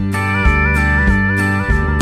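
Background music led by a guitar, with a high held note that wavers up and down in pitch over steady bass notes and a regular beat.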